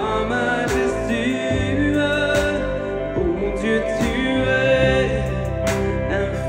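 Christian worship song played by a band: a voice singing over sustained guitar and keyboard chords, with a drum or cymbal hit about every second and a half.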